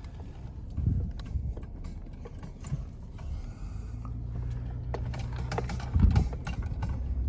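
A vehicle engine running with a steady low hum, mixed with many sharp clicks and knocks and two heavy thumps, about a second in and about six seconds in.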